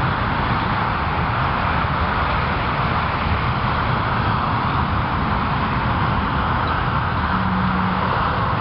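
Steady rushing outdoor background noise with no distinct events; a low steady hum comes in near the end.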